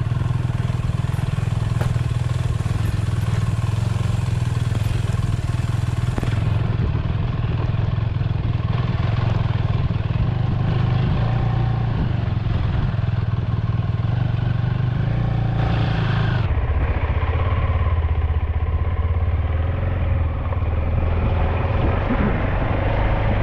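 KTM 390 Adventure's single-cylinder engine running steadily as the bike is ridden, its note shifting about two thirds of the way through.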